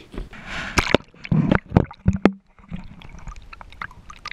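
Water splashing and gurgling as a handheld camera plunges underwater, with a rush of water early on and several sharp knocks and clicks.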